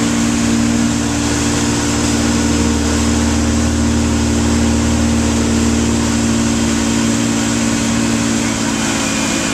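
Towing motorboat's engine running steadily at a constant pitch, under a hiss of wind and churning wake water.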